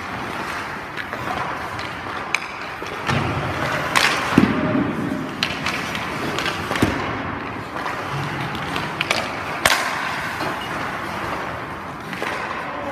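Hockey skates scraping and carving on rink ice as the goalie shuffles and slides across the crease, with several sharp knocks scattered through, the loudest about four seconds in and near ten seconds.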